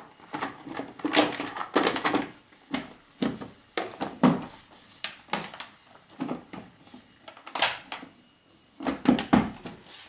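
Plastic top half of a Mk3 Ford Focus airbox being pushed and knocked down onto its lower half: a string of irregular hard-plastic clunks, clicks and rattles, a few sharper knocks among them.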